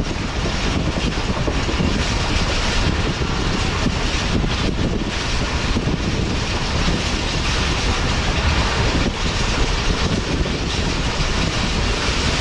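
Passenger train running at speed: a steady rumble and rush of wheels on the rails.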